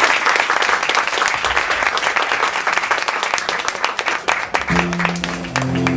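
Theatre audience applauding at the end of a musical-theatre number. About five seconds in, instrumental music comes in under the clapping.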